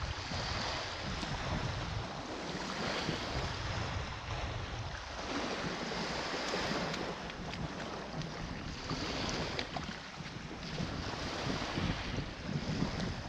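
Small waves breaking and washing up a sandy shore, a fresh swell of surf every few seconds, with wind rumbling on the microphone.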